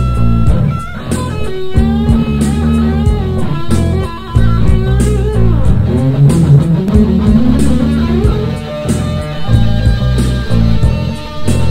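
Rock recording with electric guitar, bass guitar and drums playing an instrumental passage with a steady beat. A guitar line bends up and down in pitch about halfway through.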